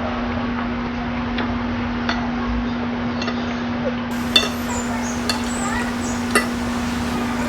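Eating at the table: a utensil clinks sharply against a dish three times in the second half, among small soft eating noises, over a steady low hum.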